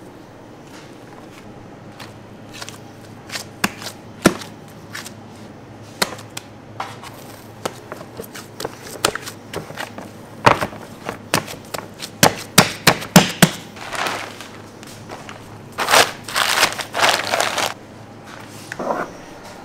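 Bakery work noise: irregular knocks and clicks of tools and dough being handled on a work surface, growing busier partway through, with a short run of louder rubbing noise near the end.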